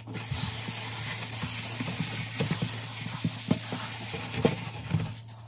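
Kitchen sponge scrubbing a stainless-steel sink coated in cleaner: a steady rubbing hiss with many quick strokes.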